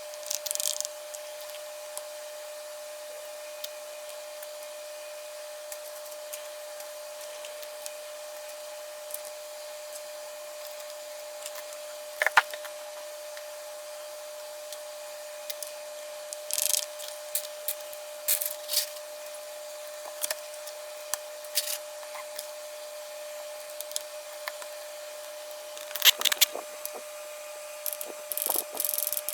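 Scattered clicks and clacks of keyboard parts being handled and fitted during a custom mechanical keyboard build, busiest in the second half, over a steady faint hum.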